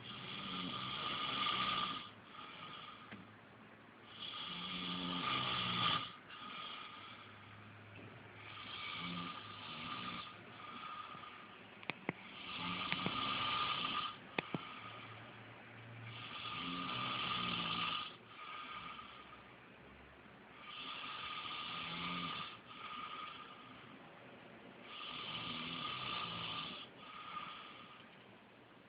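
A man snoring heavily, about seven loud snores roughly four seconds apart, each swelling and fading, with quieter breathing between them. A few brief clicks come near the middle.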